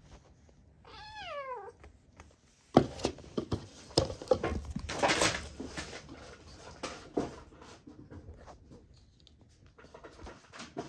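A kitten meows once about a second in, a short call falling in pitch. Then come loud rustling of clothing and sharp knocks, strongest a few seconds in, as the kitten scrambles over a person's lap.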